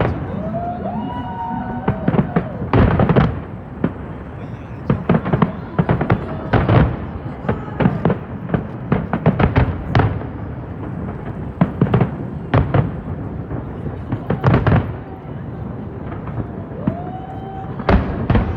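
Aerial fireworks bursting overhead: a rapid, irregular barrage of loud bangs and crackles over a continuous rumble, with a few short whistling glides.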